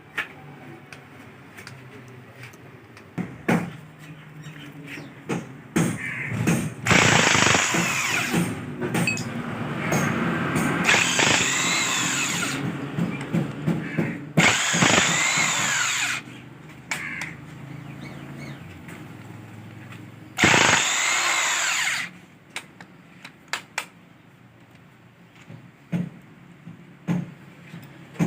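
Handheld power tool run in three bursts, the first and longest lasting about five seconds, its pitch rising and falling within each run, as bolts are worked loose on an engine being dismantled. Short metallic clinks and clanks of tools and parts come between the runs.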